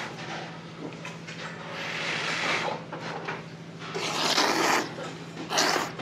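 A man slurping hand-cut kalguksu noodles: three long, noisy slurps, the loudest in the second half, over a steady low hum.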